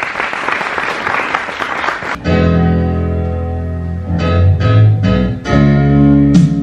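An audience applauding for about two seconds, then an abrupt cut to music: a keyboard playing sustained chords, with sharp hits on a beat.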